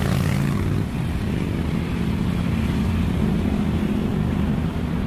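Busy road traffic: motorcycle engines and a tanker truck's engine running in a steady mix of engine noise.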